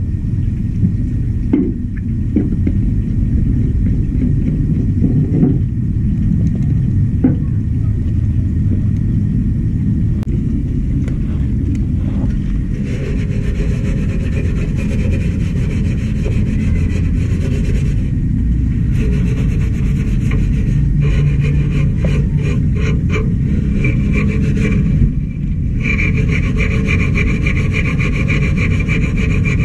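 Steel wool scrubbing the pressed-steel body of a Honda EX5, wet with paint remover, in quick scratchy strokes. The scrubbing comes in from about halfway in and pauses briefly near the end, over a steady low rumble.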